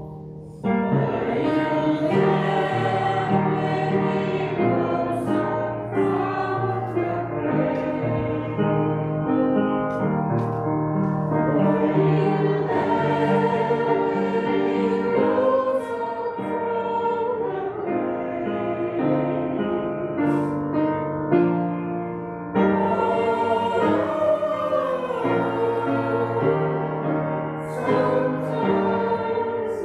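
A choir singing a hymn in long held notes, beginning about half a second in.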